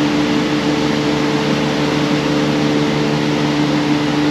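Steady hum of a ventilation or air-conditioning system in a large hall: an unchanging drone with a few fixed low tones over a soft rushing noise.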